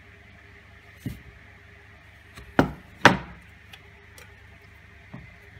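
Knocks and clunks of a wooden base board and metal rods handled on a wooden workbench as the rods are fitted into plastic pipe holders. Two loud knocks come close together near the middle, with smaller taps before and after.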